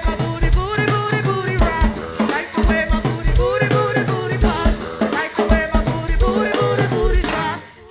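Go-go funk music: a drum-kit groove with bass drum and rimshots under a busy pitched lead line, dipping briefly near the end.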